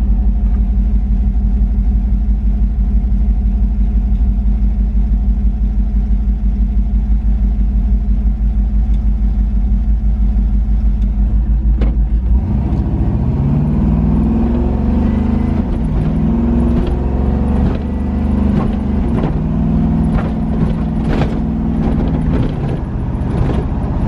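A 6.0 LS V8 in a car under way with a 4L80E automatic, droning steadily at a constant pitch for about the first half. It then pulls with the pitch rising and dropping back several times as the rebuilt transmission shifts through its gears. A few short knocks and rattles come through in the second half.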